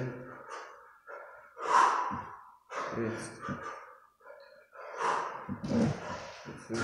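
A man breathing hard and sharply through a set of kettlebell snatches, a forceful breath about every second. Some breaths near the end carry a short voiced grunt.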